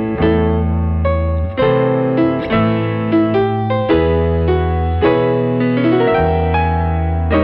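Background piano music: notes and chords struck about once a second, each left to ring.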